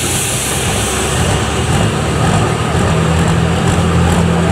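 Turbocharged diesel engine of a Fendt 930 pulling tractor running steadily at low revs while the tractor stands still. Its note firms up about three seconds in.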